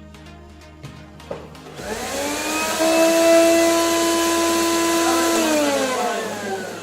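Motor of an electric kitchen appliance starting about two seconds in, rising quickly in pitch, running at a steady whine for about three seconds, then winding down near the end.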